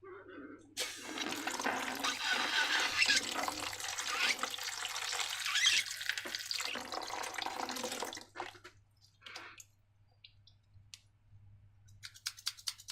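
Liquid streaming steadily into a container for about seven seconds, then stopping, followed by a few small clicks and a quick run of ticks near the end.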